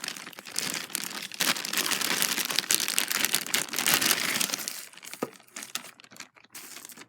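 Packaging being crumpled and pulled open by hand: a dense crinkling that lasts about four and a half seconds, then scattered softer rustles with one sharp click.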